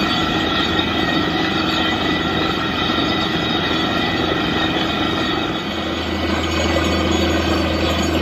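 Truck-mounted borewell drilling rig running steadily, its engine and air compressor going at a constant pitch, with a rush of air blowing water and rock cuttings up out of the borehole. A deeper steady hum sets in about two-thirds of the way through.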